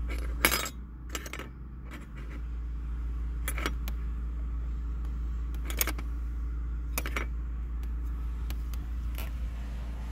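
Sharp clicks and taps of the overhead light's metal heat shield and plastic lens being handled and fitted, about six of them a second or more apart, the loudest about half a second in. A steady low hum runs underneath.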